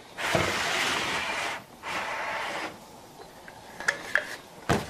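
Caulking gun of Liquid Nails construction adhesive being handled and worked: a rushing noise for over a second, a shorter quieter one, then a few sharp clicks of the gun near the end, the last the loudest.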